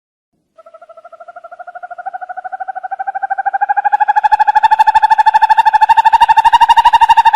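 An owl's long, rapid trill on one note, about a dozen pulses a second, swelling from faint to loud and rising slightly in pitch before cutting off abruptly near the end.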